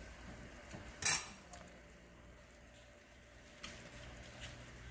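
A sharp metallic clink against the aluminium stockpot about a second in, followed by a couple of fainter clicks, over a low, quiet background.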